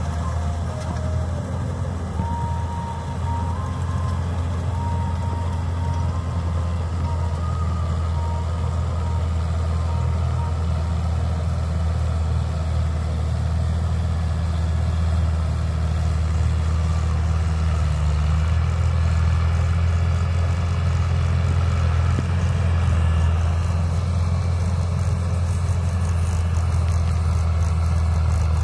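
Steady low drone of diesel farm engines: a combine harvester cutting rice paddy, with tractors working in the same field. It grows slightly louder in the second half.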